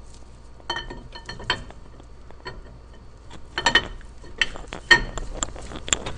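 Metal parts clinking and tapping as new valve lifters are fitted one by one into the lifter bores of a Rover 4.0-litre V8 engine block. There is a series of sharp clinks, some ringing briefly, coming closer together in the second half.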